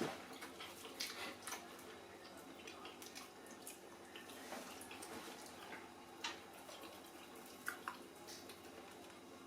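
Quiet eating sounds: a few scattered soft, wet clicks and smacks of people chewing and eating from their plates, over a faint steady room hum.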